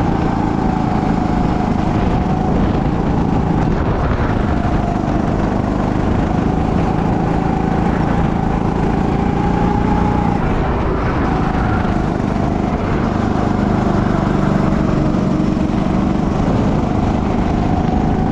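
Go-kart engine running hard on track, its pitch wavering up and down as the driver lifts and accelerates, with a drop a little past halfway.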